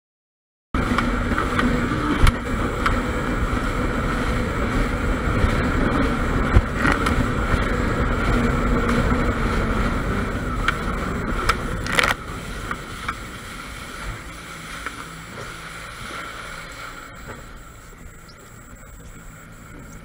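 Jet ski engine running under way, with water rushing against the hull. About twelve seconds in there is a sharp knock, and then the engine drops back and runs quieter.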